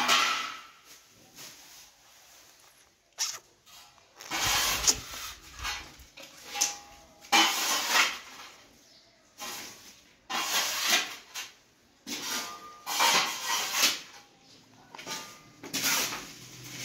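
A series of short rubbing noises, one every second or two, with quiet gaps between.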